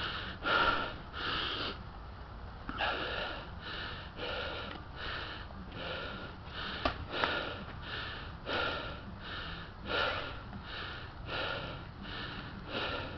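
A person's heavy, rhythmic breathing close to the microphone, short puffs about twice a second with a brief pause about two seconds in.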